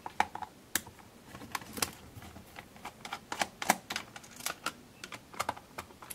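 Small screwdriver turning the screws out of a Casio VL-1's plastic back case, with the case being handled: a run of short, irregular clicks and ticks, a few a second.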